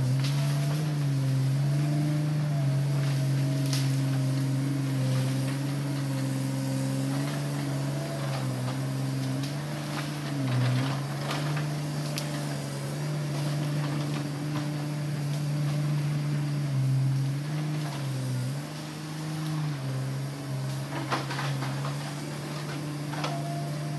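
Hitachi Zaxis 200-5G excavator's four-cylinder diesel engine running with a steady hum that dips briefly in pitch now and then under load as the machine works through brush. A few sharp cracks sound over it.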